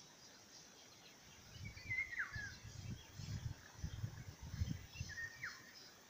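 Wind buffeting the microphone in low, irregular rumbling gusts through the middle, over a faint outdoor background. Birds call twice, short chirps that sweep down in pitch, about two seconds in and again near the end.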